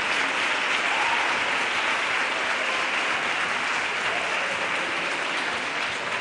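Audience applauding in a hall: steady, dense clapping that slowly dies down.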